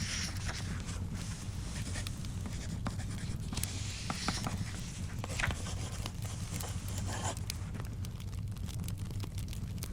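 Library study ambience: paper rustling and pen scratching in short strokes, over a steady low rumble with scattered small crackles from a fire.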